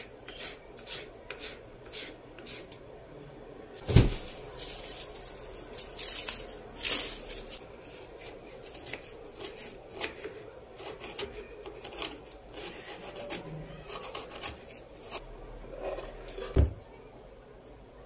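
Kitchen food-preparation handling sounds: light clicks and rubbing on a wooden surface, with a sharp knock about four seconds in and another near the end.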